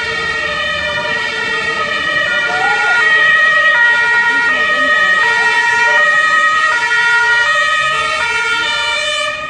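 German two-tone emergency sirens (Martinshorn) on arriving fire-brigade vehicles, several overlapping and out of step, each switching between a high and a low note about every three-quarters of a second. They grow louder over the first few seconds as the vehicles approach.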